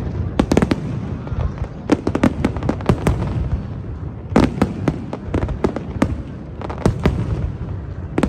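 Fireworks display: clusters of sharp bangs and crackling bursts at irregular intervals over a continuous low rumble.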